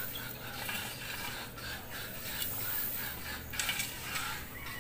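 A hand tool scraping and turning a dry pile of rice hulls and cow manure as it is mixed into organic fertilizer: a few rough scraping strokes, the strongest about one and a half and three and a half seconds in.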